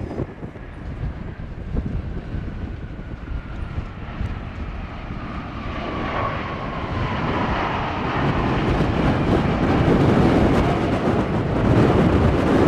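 Boeing 777 freighter's twin GE90 jet engines running as it rolls along the runway, growing louder as it comes past, with a whine that slowly falls in pitch.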